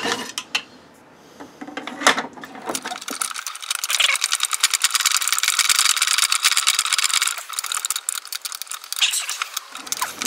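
A long drywall screw being driven by hand with a long-reach Phillips screwdriver into 3D-printed plastic parts. After a few separate knocks, there is a dense run of rapid clicking from about three seconds in until near the end.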